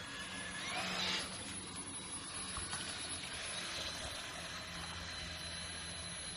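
Radio-controlled model boat running on the water: a steady motor whine that rises and swells briefly about a second in, then holds a steady high pitch.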